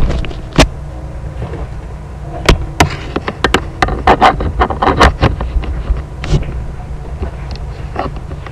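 Handling noise from the camera being picked up and moved against clothing: a low rumble of rubbing with scattered knocks and clicks, thickening into a quick run of knocks between about two and five seconds in.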